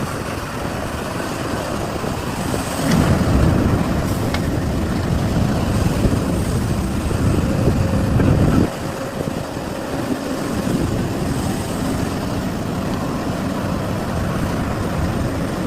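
Heavy diesel machinery running steadily, getting louder a few seconds in as it works harder, then dropping back suddenly near the middle.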